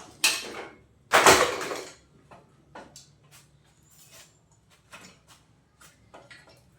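A motorcycle's front wheel being moved and set down: a knock at the start, a louder clatter about a second in, then a few light taps and clicks.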